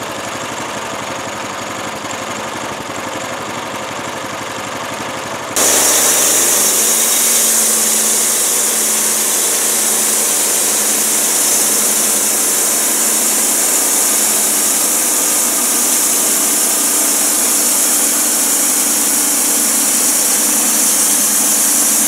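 Homemade bandsaw mill's 13 HP engine running steadily, then about five and a half seconds in it suddenly revs up. The band blade then runs through a log with a loud, steady high hiss of sawing for the rest.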